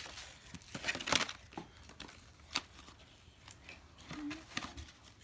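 Plastic candy packaging crinkling and tearing as it is handled and pulled open, in irregular rustles, the loudest about a second in.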